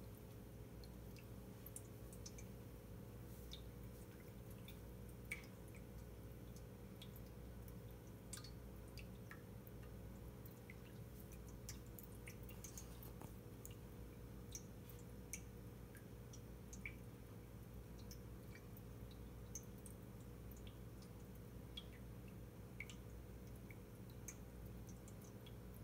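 A cat lapping water from a stainless steel bowl: faint, irregular wet clicks and drips over a steady low hum.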